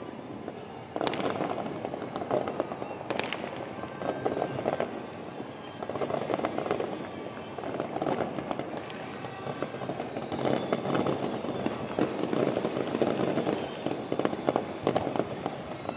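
Fireworks going off: a dense, unbroken run of crackling pops and bangs, with two sharper bangs about one and three seconds in.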